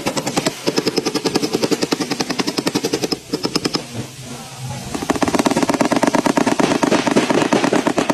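Powered tap-down hammer from a paintless dent repair kit rattling against a car's sheet-metal body panel, about a dozen taps a second, knocking down a dent. It runs in two bursts with a short pause about four seconds in.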